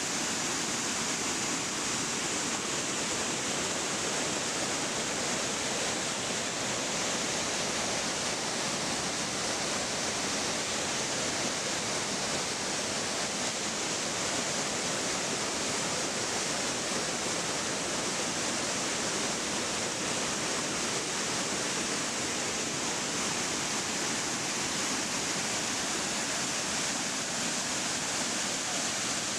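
Waterfall pouring steadily into a churning pool, its flow swollen with muddy rainwater: an even, unbroken rush of white water.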